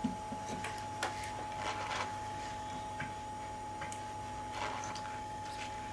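Small, scattered ticks and clicks of steel tweezers working tiny surface-mount parts on a motherboard, over a steady electrical hum with a thin, high whine.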